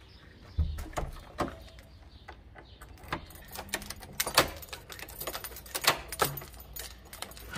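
Irregular clicks and knocks, a few sharp and closely spaced, with a duller low thump about half a second in.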